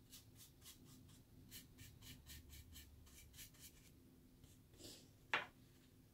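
Paintbrush stroking acrylic paint onto a thin wooden cutout: faint, quick scratchy brush strokes, about three a second, then a single sharp tap about five seconds in.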